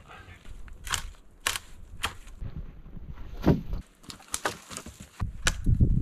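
Sharp, irregular cracks and snaps of wood, about eight over several seconds, followed near the end by heavier low thumps and rustling.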